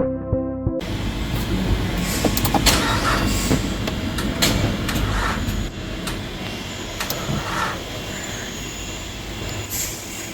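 Music stops abruptly just under a second in, giving way to a steady noisy rumble, like vehicle or traffic background, with scattered sharp clicks.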